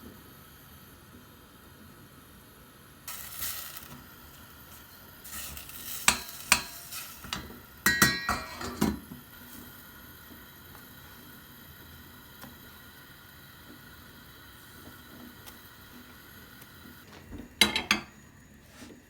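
Kitchen utensils and dishes being handled: sharp knocks and clinks in a few short bursts, the loudest from about six to nine seconds in with a brief metallic ring, and another short clatter near the end.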